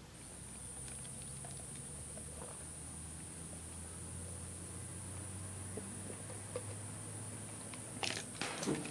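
A low, steady buzzing drone of unidentified source, which the recordist hears only once in a great while and thinks comes from the sky or a tree. A constant high-pitched whine runs above it, and a few rustling clicks come near the end.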